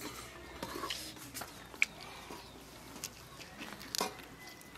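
Quiet eating by hand from steel plates: faint chewing and mouth sounds with a few scattered light clicks, one sharper click about two seconds in and another about four seconds in.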